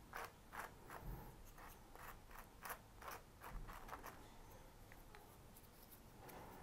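Faint, irregular scratching and tapping of a small brush working PVA glue in a pot and dabbing it onto the layout's scenery base, busiest in the first few seconds.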